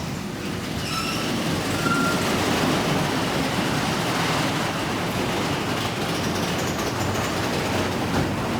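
Car wash bay's overhead door rolling open, a steady rumble.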